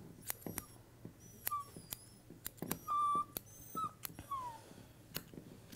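Yorkshire Terrier puppy whining in a few short, high whimpers, the last one sliding down in pitch, over quick clicking snips of grooming scissors trimming the hair on its back foot.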